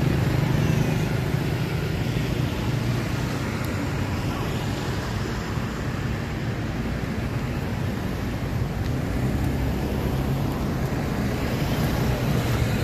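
Motor vehicle engine running nearby: a steady low hum of road traffic, easing off slightly midway and growing louder again near the end.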